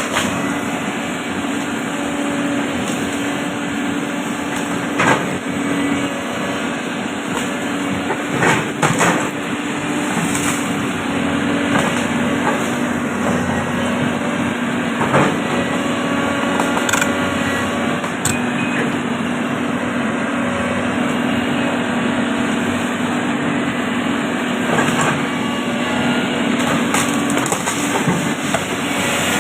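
Caterpillar 320D long-arm excavator's diesel engine running steadily at working revs, with a few sharp knocks and cracks about 5, 9, 15 and 18 seconds in.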